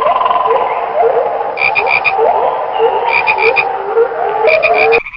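Chorus of tree frogs calling: many short rising calls overlap, with groups of four or five quick higher-pitched notes about every second and a half. It cuts off suddenly near the end.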